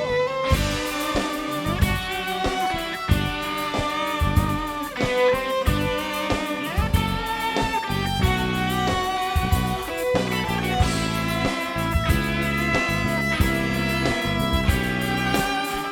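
Instrumental break of a pop ballad: an electric guitar plays a lead melody with bent notes over drums and bass.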